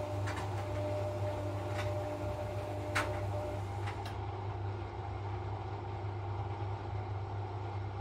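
Hisense front-loading washing machine running with a puffer jacket in the drum: a steady motor hum with a faint whine over it. A few light clicks come through, the sharpest about three seconds in.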